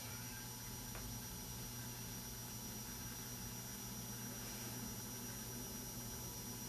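Faint, steady electrical hum and hiss with a thin high whine: room tone and recording noise, with one faint click about a second in.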